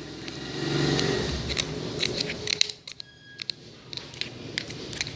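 Sticky clicks and crackles of homemade slime being pulled and scraped out of its container, quieter for a moment about three seconds in.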